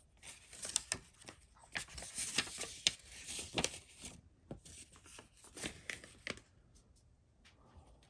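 Close handling noise of a hand-held Swiss Army multi-tool: irregular rustling with light, sharp clicks, which stop about a second and a half before the end.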